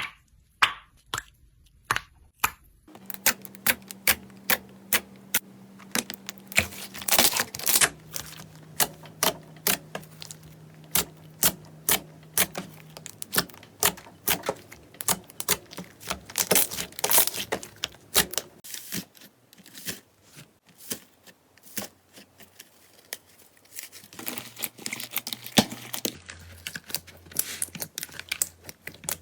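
Slime being squeezed and poked by hand, giving a fast, irregular run of sharp crackling clicks and pops.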